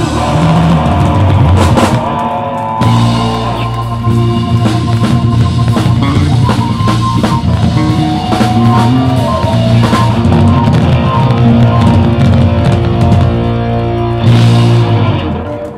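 Live band of electric guitar, bass guitar and drum kit playing an instrumental passage with no singing. The music drops off near the end.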